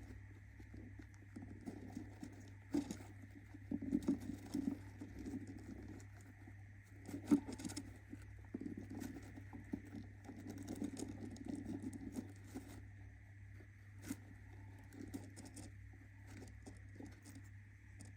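Budgerigar scratching and shuffling about in its nest, an irregular rustle with scattered light taps and clicks over a steady background hum.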